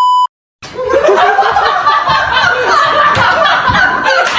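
A steady high test-card beep, the tone that goes with TV colour bars, cuts off a fraction of a second in. After a brief silence, people burst into laughter that carries on with excited chatter.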